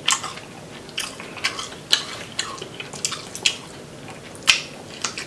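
A person chewing sauce-covered crawfish: a string of short, wet clicks and smacks at an uneven pace of about two a second, the loudest about four and a half seconds in.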